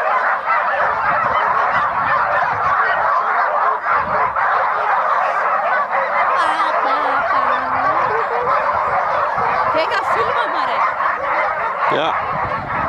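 A dense, unbroken chorus of dozens of dogs barking and yelping together, the pack excited and straining at the start line of a dog race.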